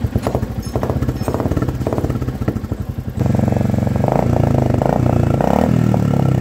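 Royal Enfield Classic 350 single-cylinder exhaust thumping at a steady idle, then revved about three seconds in, louder, with the pitch rising and falling as the throttle is worked. The exhaust note has been altered by a modification rather than a silencer change.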